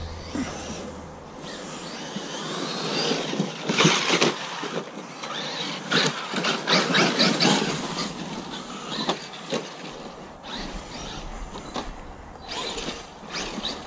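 Traxxas Maxx electric RC monster truck driving hard on dirt and dry leaves. Its brushless motor whines up in pitch as it accelerates about two seconds in, under the tyres scrabbling and repeated crunches and knocks as the truck bounces over the ground.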